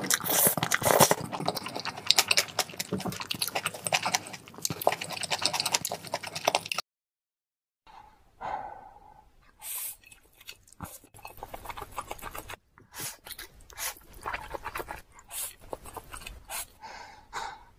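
Close-up mouth sounds of noodles being eaten: wet slurping and chewing with many small clicks. About seven seconds in, the sound cuts to a second of silence, then goes on sparser and quieter with breathy sucks and smacks.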